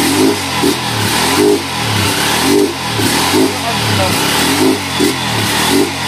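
Honda TMX 155's single-cylinder four-stroke engine running through an aftermarket Takasago muffler on the stand, revved repeatedly in short throttle blips.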